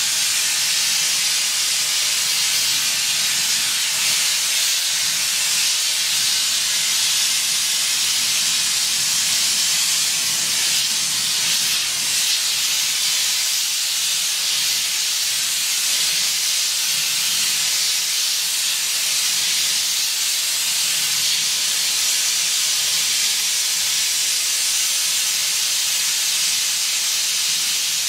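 Steady hiss of a gas torch flame playing on a sand-filled steel exhaust pipe, heating it to be bent.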